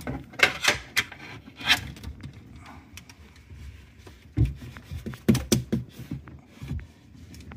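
Hands handling the plastic parts of a dishwasher air gap: irregular scraping and rubbing with a scatter of sharp knocks and clicks.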